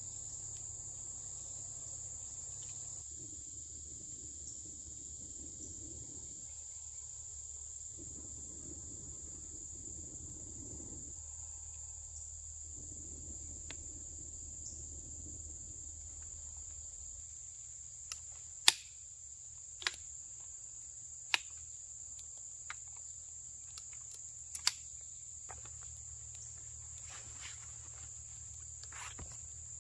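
A steady high-pitched drone of forest insects. Over it, three long breaths are blown into smouldering tinder to bring a campfire up to flame, with short pauses between them. Later come several sharp clicks, the loudest about two-thirds of the way in.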